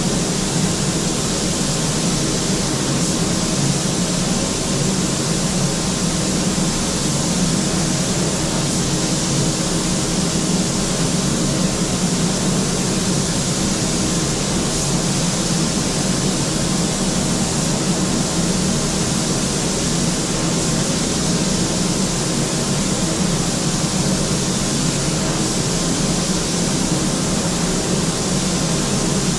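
Steady, loud rushing noise with a low hum underneath, unchanging throughout.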